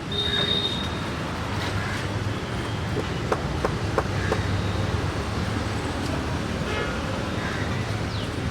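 Steady street traffic noise with a low hum, short high horn toots near the start and again near the end, and a few sharp clicks or taps about three to four seconds in.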